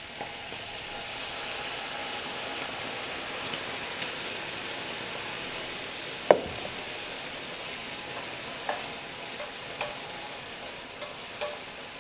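Fake-chicken pieces sizzling in a hot frying pan as wine is splashed in to deglaze, a steady hiss that swells at the start. One sharp knock about six seconds in, and a few lighter utensil taps in the second half.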